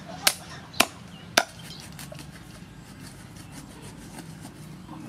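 Cleaver chopping through a fish on a thick wooden chopping block: three sharp chops in the first second and a half, then fainter taps and rubbing.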